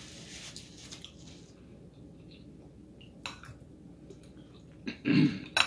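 Quiet eating sounds: chewing and a paper napkin rustling at the mouth, with a light click about three seconds in. A short loud burst of voice comes near the end.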